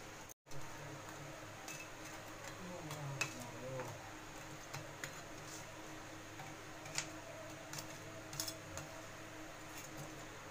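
Faint scattered clicks of a steel spoon tapping a steel bowl as jalebis are turned in sugar syrup, over a low steady hum.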